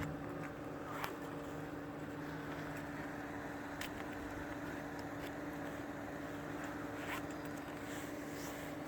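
A steady mechanical hum holding one pitch, with a few faint clicks about a second, four seconds and seven seconds in.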